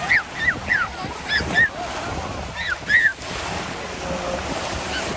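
Lake waves washing on the shore with wind on the microphone. In the first three seconds come several short, high calls that bend down in pitch.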